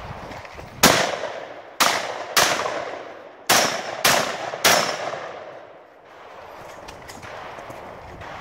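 Six gunshots from a 3-gun competitor's firearm in under four seconds: one shot, then two about half a second apart, then three more at a similar pace, each ringing out and fading.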